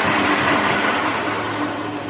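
A heavy engine running steadily, a continuous mechanical drone with a low hum, getting slightly quieter near the end.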